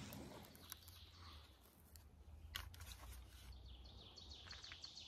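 Near silence: faint outdoor ambience with a few faint, brief ticks.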